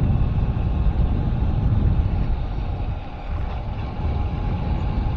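A vehicle travelling at steady speed: engine hum and road noise under a fluttering rumble of wind on the microphone.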